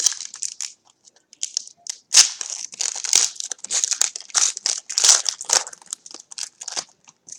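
Trading card pack wrapper being torn open and crinkled by hand, a run of crackly rustles that thickens about two seconds in.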